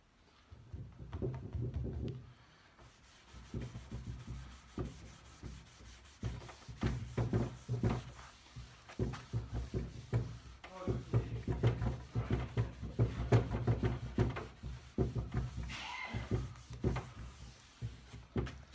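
Hand rubbing wax into a wooden pine tabletop with back-and-forth strokes, in spells with short pauses.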